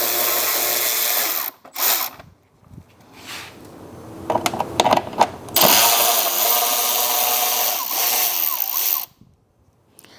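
Handheld power drill spinning in two long runs, the first about a second and a half, the second about three and a half seconds, backing out fairing bolts. Light knocks and clatter of parts between the runs.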